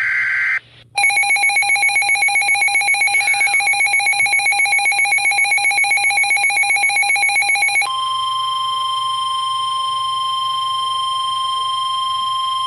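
Emergency Alert System tones on a weather radio. The end of a brief screeching SAME data burst comes first, then a rapidly pulsing alert beep for about seven seconds, then a steady single-pitch warning alarm tone that marks the start of a new alert message.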